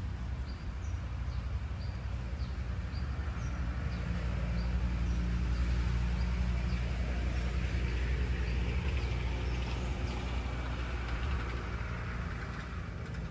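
A motor vehicle's engine running with a low, steady hum that swells through the middle and then fades, as of a vehicle passing by.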